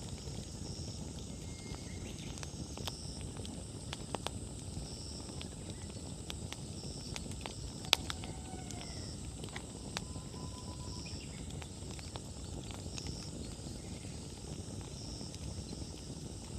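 Wood campfire burning with a steady low rush, crackling and popping irregularly, with one sharp, much louder pop about eight seconds in. Over it an insect chirps every two seconds or so, with a steady high trill behind.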